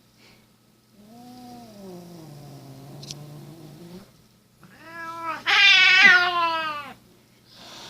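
Angry domestic cat yowling in protest at having its nails clipped: a long, low moaning growl about a second in, then a louder, higher yowl near the middle that rises and falls for about two seconds.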